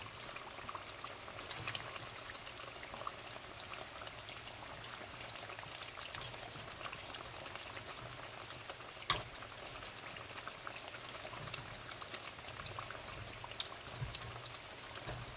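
Battered potato slices deep-frying in hot corn oil: a steady sizzle with fine crackles and pops. A single sharp click about nine seconds in.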